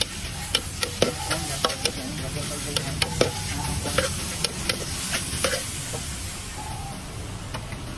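A spatula scrapes and strikes a large wok as meat and green vegetable stalks are stir-fried, over a steady sizzle. The sharp clacks come irregularly, one or two a second, and thin out after about five and a half seconds.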